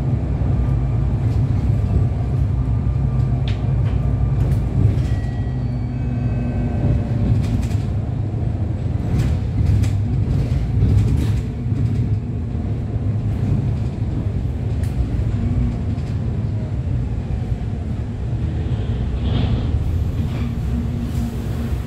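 Steady low rumble of a moving road vehicle heard from inside its cabin, with scattered light rattles and clicks.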